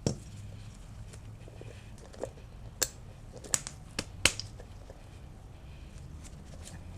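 Broken pieces and balls of a chewed-up bearing being handled, giving about six sharp, separate metal clicks and clinks over a steady low hum. The bearing's failure caused the noise, and the van would not move when put in gear.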